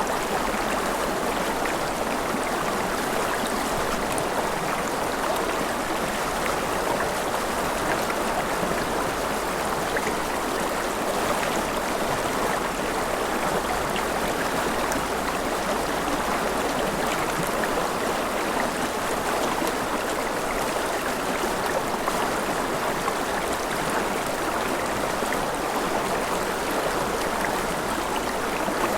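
Forest river flowing steadily: a constant rush of water over rocks with small splashes and trickles.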